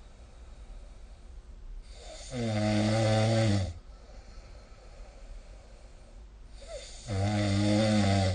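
A sleeping person snoring: two long, pitched snores about five seconds apart, each lasting about a second and a half, quiet in between.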